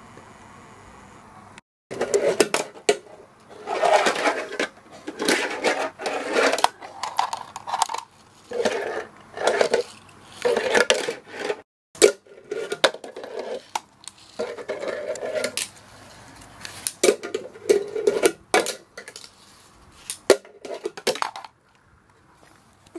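A fingerboard clattering on a plastic Tech Deck ramp: the small wheels roll with rough noise, broken by sharp clacks of the board striking the ramp. It comes in repeated runs of about a second each, starting about two seconds in.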